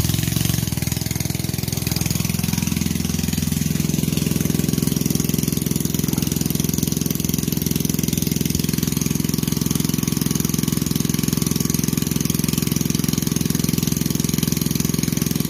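Small engine of a mud pump running steadily, with an even, rapid beat, while it pumps the pond down.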